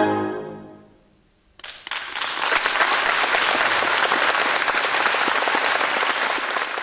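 A wind band's final chord dies away, then after a brief near silence the audience starts applauding about a second and a half in, with steady, dense clapping.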